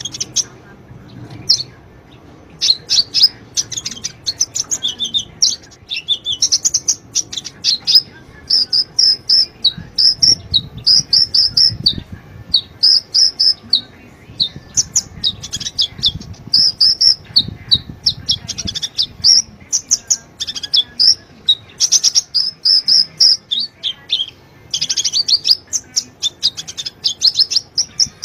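Sunbird song: rapid high-pitched chirps and trills in quick repeated phrases. This is a lure recording meant to prompt caged kolibri to sing.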